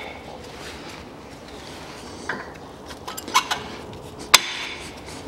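2012 Kia Sportage front brake pads being fitted into the caliper bracket: a few light metallic clicks in the second half, the sharpest a little over four seconds in, as the pads are seated against the metal bracket.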